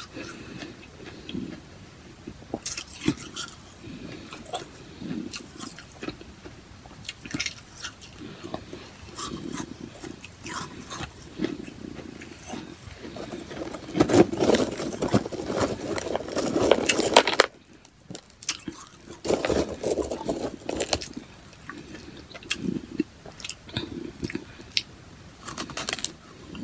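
Powdery freezer frost being bitten and chewed close to the microphone: many short, crisp crunches. About halfway through there is a louder stretch of a few seconds of crunching and scraping while a hand digs ice out of the plastic tub.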